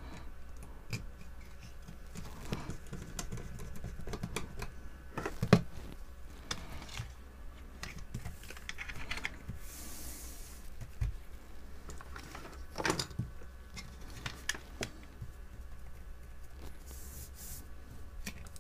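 Small clicks, taps and knocks of hand tools and the hair straightener's plastic casing being picked up and set down on a workbench mat during a search for screws. One sharper knock comes about five seconds in, and a brief rustle about ten seconds in.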